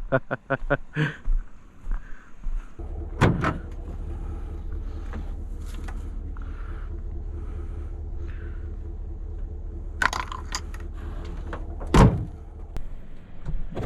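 A vehicle's engine starts about three seconds in and then runs steadily, with a thud just after it starts and two more heavy thuds near the end, the last one the loudest, like a door shutting.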